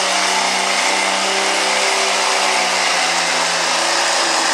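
Diesel pickup truck engine running at high revs under full load while pulling a sled, with a loud, steady note that wavers slightly in pitch.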